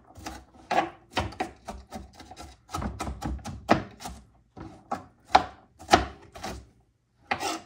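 Kitchen knife chopping an onion on a cutting board: a quick, irregular run of sharp strokes, about two to three a second, with a short pause near the end.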